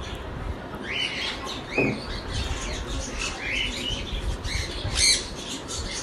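Small parrots calling: a string of short chirps that rise and fall in pitch, with a louder, harsher squawk about five seconds in.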